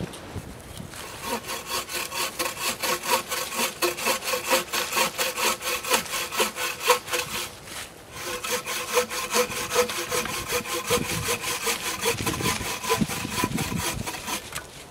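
Adventure Sworn bucksaw with a walnut frame cutting through wood by hand: a steady rhythm of back-and-forth blade strokes starting about a second in, a short pause around the middle, then more strokes that stop just before the end.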